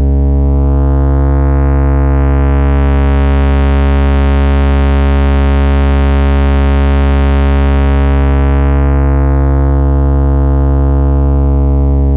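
Low, steady synthesizer tone from an oscillator's sine wave fed through the Nutone Eurorack VCA's Korg Nutube triode distortion. As the bias is turned up, it grows buzzier and brighter, nearly square-wave-like, through the middle. Near the end it is turned back down toward the plain tone. The distortion clips asymmetrically, flat on the peaks and rounded in the troughs.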